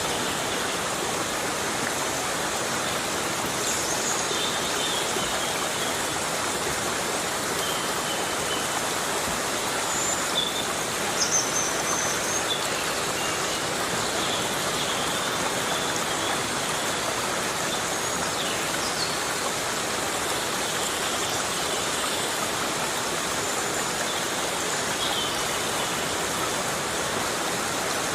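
Heavy rain falling steadily in a forest, a dense, even hiss. Short high chirps or calls sound now and then over it, a few of them a little louder about ten to twelve seconds in.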